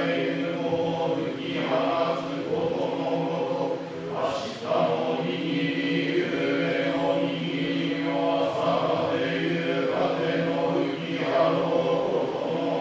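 Chanted Shinto norito prayer: a slow, drawn-out recitation held on a near-constant pitch, with a short break about four seconds in.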